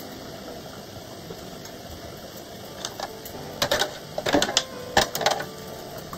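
Metal canning lids and screw bands clinking as they are picked out of hot water with a magnetic lid lifter and handled: a quick cluster of sharp clicks and clinks starting about three seconds in and lasting a couple of seconds, over a low steady background noise.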